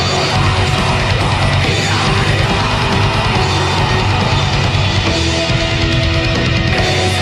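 Black metal recording: distorted guitars and drums playing loud and dense without a break.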